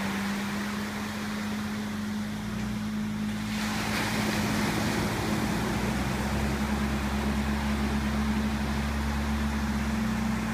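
Quadski amphibious quad's engine running steadily on the water, with rushing water and wind noise. The water and wind noise swells about three and a half seconds in, and the engine note rises a little from about five seconds.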